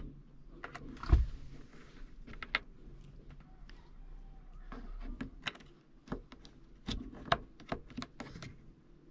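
Small plastic clicks and taps as fingers work a T10 wedge bulb in and out of its socket in a car's overhead interior light housing, with one louder knock about a second in.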